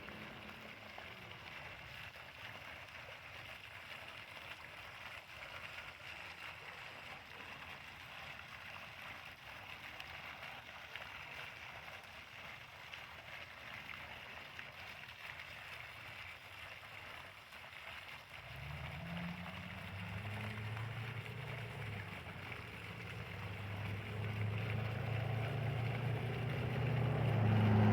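Steady splashing hiss of a water fountain's jets falling into its basin. About two-thirds of the way in, a low motor-vehicle engine hum comes in and grows steadily louder as it approaches, becoming the loudest sound by the end.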